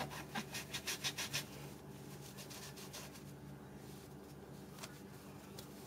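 Hands pressing and rubbing a plastic fondant cutter down through rolled sugarpaste on a worktop: a quick run of soft scratchy rubs in the first second and a half, then quiet with a faint steady hum.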